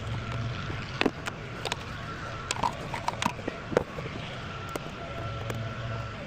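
Hand tools and sockets being handled: a few scattered clicks and knocks over a low steady hum.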